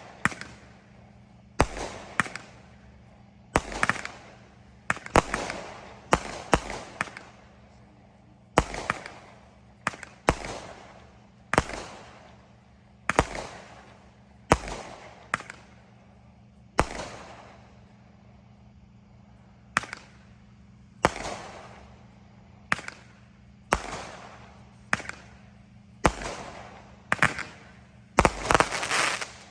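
Consumer aerial fireworks being shot off: about two dozen sharp bangs, one to three seconds apart, each trailing off in a fading tail, with a quick cluster of bangs near the end.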